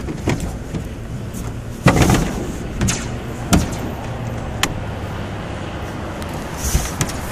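Powered standing-seam metal roofing machine running with a steady hum, working the panel seam through its forming stages. Several sharp metal clanks come from the sheet metal, the loudest about two seconds in.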